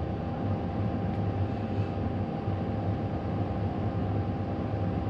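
Cat 310 mini excavator's diesel engine idling steadily, heard from inside the cab as an even hum with a few constant tones.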